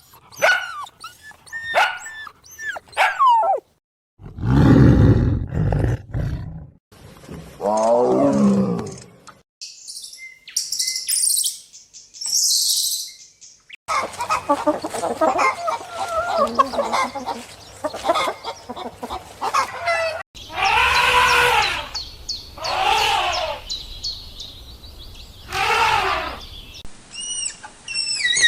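A run of different animal calls cut one after another: short chirping calls, a loud deep roar, and a series of pitched calls.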